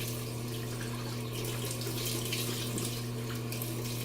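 Cold water running from a tap into a sink and splashing as it is scooped onto the face, over a steady low hum.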